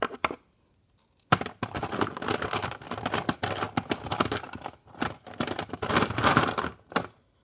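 Hands rummaging for the next Littlest Pet Shop figure: dense crinkling and rustling with many small clicks. It starts suddenly about a second in and stops shortly before the end.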